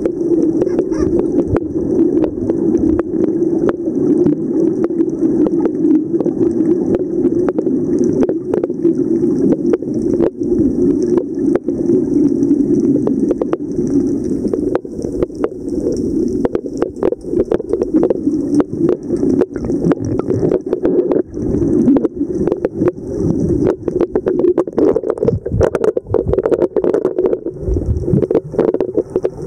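Muffled underwater noise picked up by a camera held beneath the surface: a steady low hum of water with many small clicks and knocks from the camera being handled, and a few heavier thumps near the end.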